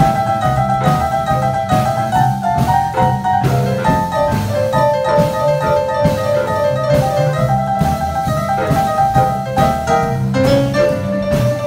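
Live small band playing jazzy music: upright bass and electric keyboard over a steady drum beat, with a stepping melody line on top.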